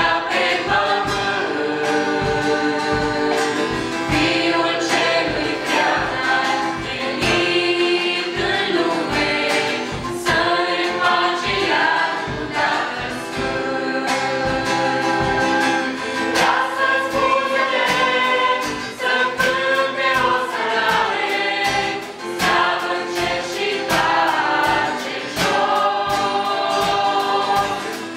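Church choir of young men and women singing a gospel song together, accompanied by an acoustic guitar strummed in a steady rhythm.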